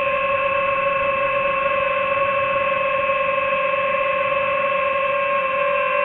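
Quadcopter drone's motors and propellers giving a steady high whine at an even pitch.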